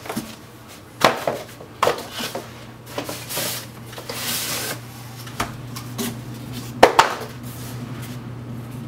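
Cardboard packing inserts being pulled out of a shipping box and handled: scraping and rustling of cardboard with several sharp knocks, the loudest about seven seconds in, over a steady low hum.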